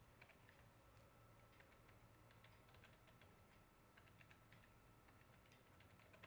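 Faint, irregular keystrokes on a computer keyboard as text is typed, over a faint steady hum.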